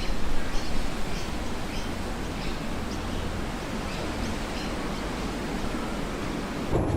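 Steady outdoor background noise with faint, short high-pitched ticks or chirps about twice a second. Near the end it changes abruptly to a louder, lower-pitched rumble.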